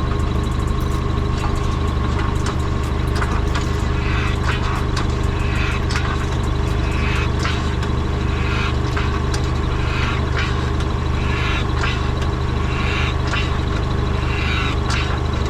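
A steady low mechanical hum, like a motor running, with irregular clicks and short higher-pitched rasps scattered over it.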